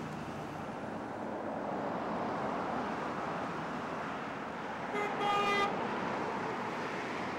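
Steady highway traffic noise from passing cars and trucks, with a car horn honking twice, a short toot and then a half-second honk, about five seconds in.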